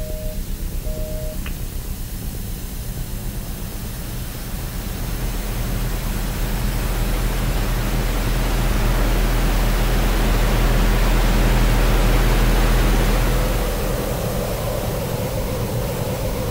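A deep rushing rumble, pulsing fast at first, that swells over several seconds to its loudest and then eases off. A two-tone electronic beep stops about a second in.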